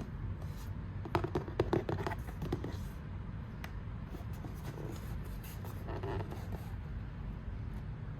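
Hands handling a shoebox and its packaging: scratching and scraping with a few taps, busiest between about one and two and a half seconds in. A steady low hum lies underneath.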